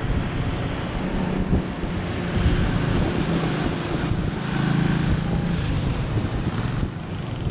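E-8C JSTARS jet engines running with a steady low rumble that swells a little about halfway through, with wind buffeting the microphone.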